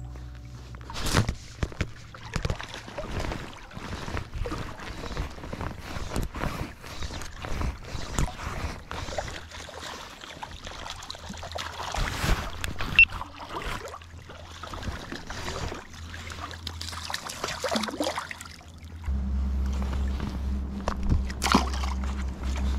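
River water sloshing and splashing around a wading angler in steady rain, with many irregular clicks and knocks from handling the fly rod and gear close to the microphone. A low steady hum comes in near the end.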